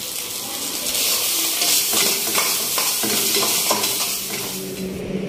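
Food sizzling and frying in a hot pan over a gas flame, with a metal spatula or ladle stirring it and knocking and scraping against the pan several times.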